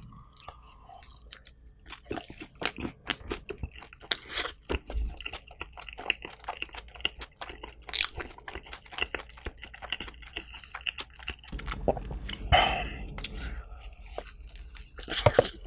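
A person biting and chewing pizza close to the microphone, with many small crisp crunches and a few louder bites.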